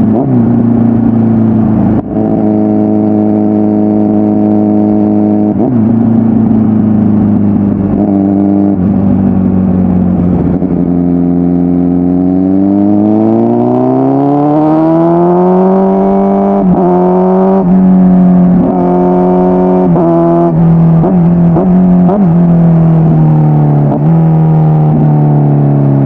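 2009 Kawasaki ZX-10R's 1000cc inline-four with a full aftermarket exhaust, running at steady revs with a few brief dips, then revving up smoothly over about four seconds near the middle as it accelerates. After that comes a string of quick dips in the engine note as the revs ease down.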